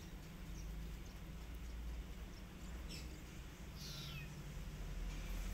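A kitten mewing: a short high call about three seconds in, then a longer one falling in pitch just before four seconds, over a low steady hum.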